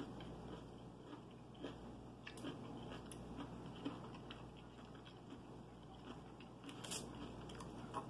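Faint chewing of food, with soft mouth sounds and scattered small clicks; a sharper click comes about seven seconds in.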